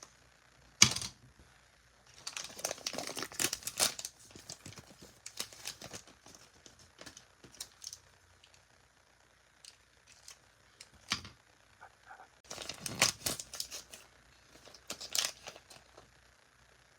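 Thin plastic toy packaging being torn and crinkled while Zuru Mini Brands items are unwrapped, with sharp clicks and taps of small plastic pieces. A loud click comes about a second in, and there are two longer spells of crinkling.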